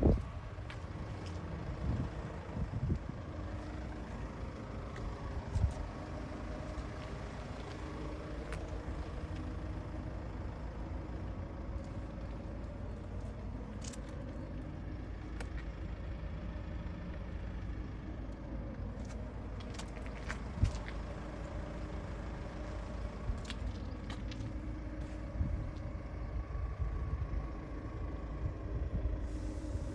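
Hyundai i20N's 1.6-litre turbocharged three-cylinder engine running, its pitch drifting slowly up and down. A few short knocks sound over it.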